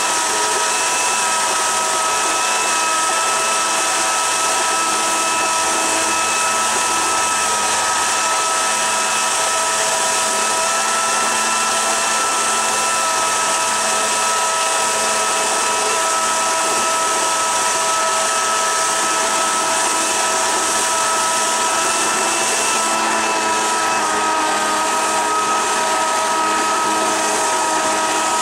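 Electric jet-drive unit running steadily at about half throttle, its brushless motor giving a steady whine over the churning rush of the water jet. The pitch shifts slightly about three-quarters of the way through.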